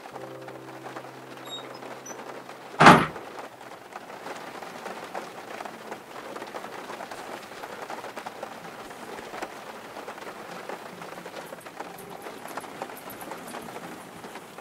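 Steady patter of rain. A single sharp bang about three seconds in is the loudest sound.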